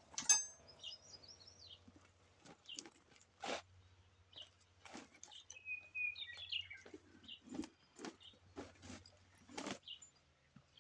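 Faint bird chirps, a few short calls, among scattered soft knocks and taps.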